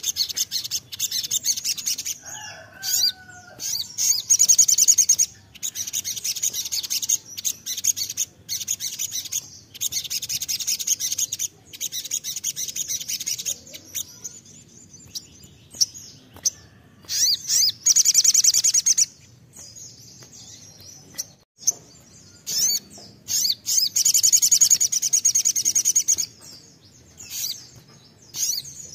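Male olive-backed sunbird singing: long, fast, high-pitched trilling phrases, repeated in several bursts with short breaks between them.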